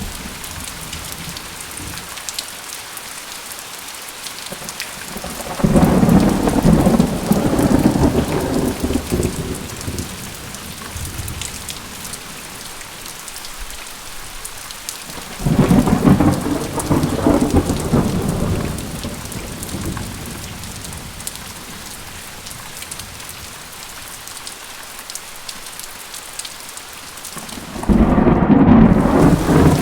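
Thunderstorm: steady heavy rain hiss with three rolls of thunder. Each roll starts suddenly and rumbles for a few seconds, about six seconds in, near the middle, and again near the end.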